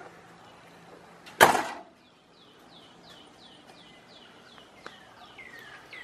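A pickup truck door slams shut once, about a second and a half in. After it a bird calls in a run of short falling notes, about three a second.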